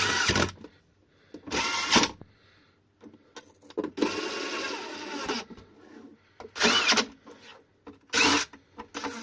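Cordless screwdriver whirring in about five short bursts, the longest a second and a half, driving screws to close up an e-bike battery box.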